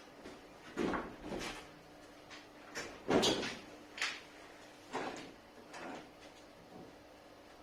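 Wooden box bed being handled: a series of about seven knocks and scrapes of wood, the loudest about three seconds in, over a faint steady hum.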